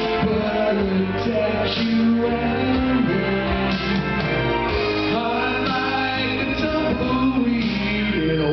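Country band playing live, guitars over bass and drums, with cymbal hits every second or so.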